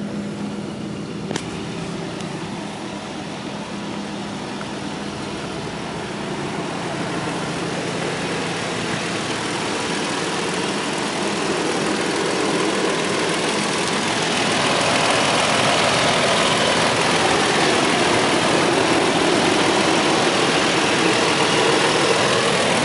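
A Toyota Tacoma's 4.0-litre V6 idling steadily. It grows louder and closer in the second half, heard over the open engine bay.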